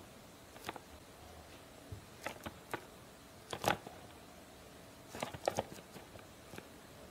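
Quiet handling noise from a cardboard candy-toy box being turned in the hands: scattered light taps and crinkles, the loudest a little past halfway and a quick cluster about three quarters through.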